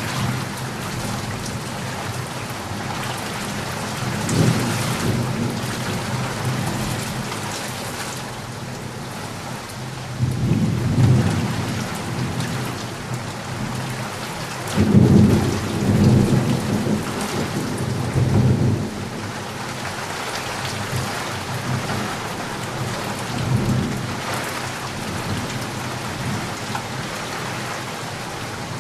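Heavy rain falling steadily with rolls of thunder rumbling through it, several times, the loudest and longest about halfway through.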